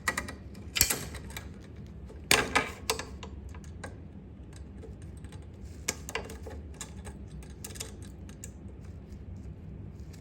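Irregular small metallic clicks and clatters of a retaining clip being worked back onto the cable connection of an Ariens snowblower's wheel-drive linkage, with louder bunches of clicks about a second in and about two and a half seconds in, and scattered lighter clicks later.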